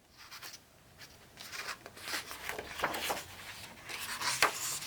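Paper rustling and rubbing as pages of a picture book are handled and turned, in a series of short scrapes.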